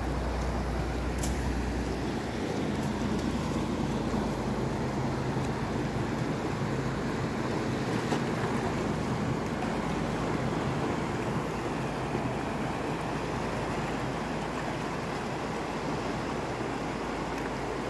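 Fast river current rushing steadily over rocks.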